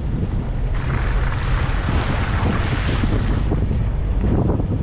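Jeep Wrangler TJ driving slowly on a dirt track, with a steady low rumble of engine, tyres and wind on the microphone. About a second in, a hiss of splashing water rises as the tyres ford a shallow creek, and it fades out after a couple of seconds.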